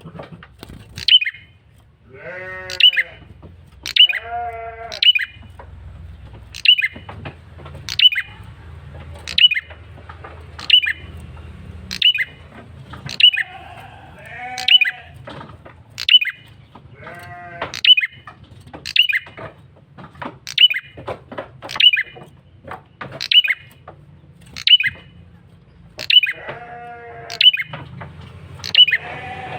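Male red-headed prenjak (prenjak kepala merah) calling persistently in a lure recording: sharp, high, clipped notes repeated about once every second and a half. Several times they are joined by harsher, nasal, buzzy calls.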